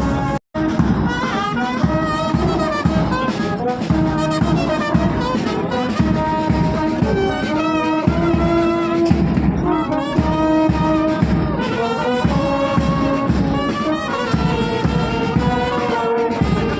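Music led by brass instruments over a steady drum beat, cutting out briefly about half a second in.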